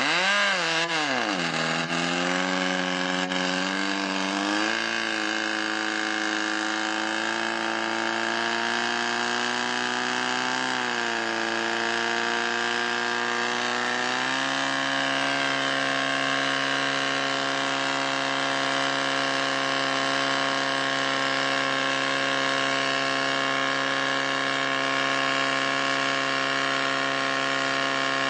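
Portable fire pump's engine run hard under throttle. Its pitch swings up and down sharply at first and shifts a few more times, then, about halfway through, it steps up and holds a steady high note while pumping water to the hose lines.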